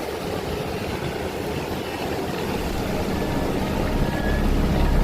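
Propeller engine of a light plane droning steadily, growing gradually louder as it approaches.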